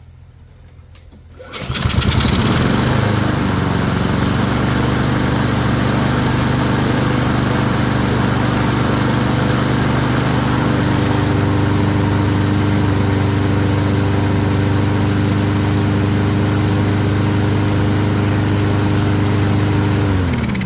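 Honda walk-behind lawn mower's single-cylinder four-stroke engine starting about one and a half seconds in, catching at once and running steadily after its carburetor cleaning and maintenance. It is shut off near the end and winds down.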